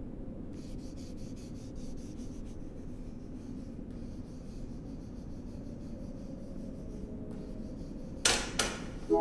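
Quick, repeated scratching strokes of drawing on a surface. Near the end comes a sudden loud electronic alert, the entry signal that announces a customer.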